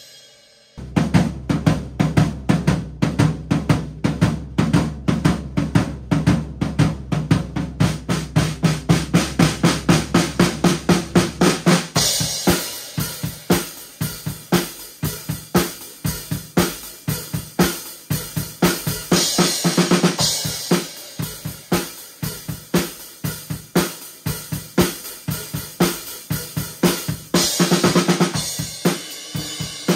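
Acoustic drum kit with Zildjian cymbals played in a steady groove of kick, snare and hi-hat, with a low steady hum under the first part. About twelve seconds in the playing turns to louder cymbal washes, with crash accents near twenty seconds and near the end.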